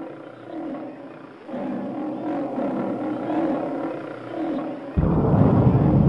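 Monster sound effect: deep, wavering growling roars, then about five seconds in a sudden, much louder low rumble cuts in.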